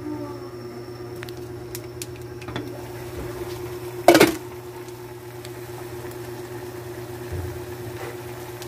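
Steady low hum of the stove area while a lidded saucepan of vegetables simmers on a gas burner. A short, sharp clatter about four seconds in, with a few faint clicks.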